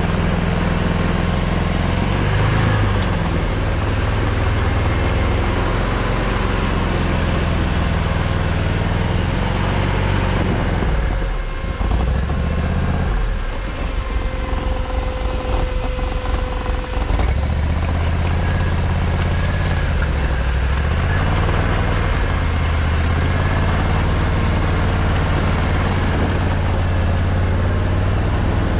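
Argo Aurora 8x8 950 amphibious ATV on half tracks driving through mud, its engine running steadily with the revs rising and falling. For several seconds around the middle the engine's steady note breaks up into a rougher, uneven sound.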